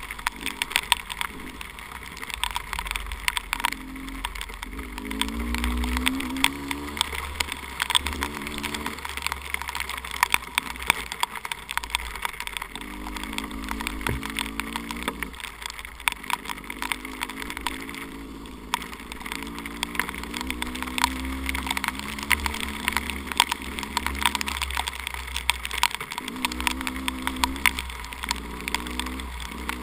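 Two-stroke 300 cc enduro dirt bike engine under way, revving up and falling back again and again through the throttle and gear changes. Low wind rumble on the microphone and frequent sharp ticks run under the engine.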